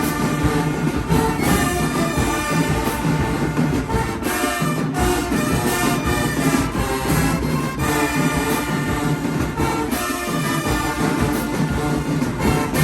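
High school marching band playing: brass horns over a drumline, loud and steady throughout.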